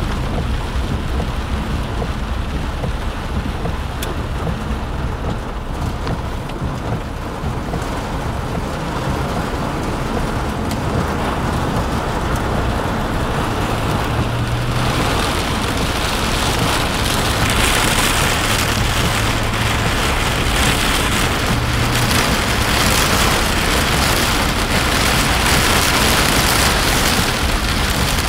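Heavy rain hitting a car's roof and windshield, heard from inside the moving car over a steady low rumble of engine and road. The rain grows louder about halfway through.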